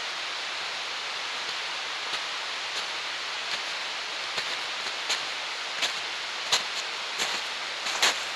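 Footsteps of a hiker in boots climbing uphill over leaf litter and patches of snow, about one step every 0.7 s, growing louder as he comes close. A steady rushing hiss runs underneath.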